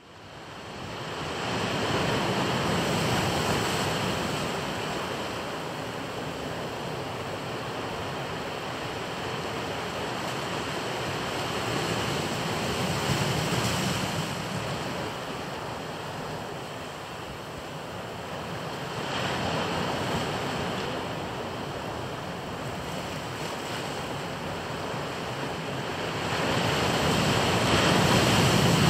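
Ocean surf washing in. It fades in over the first two seconds, then swells and eases every several seconds.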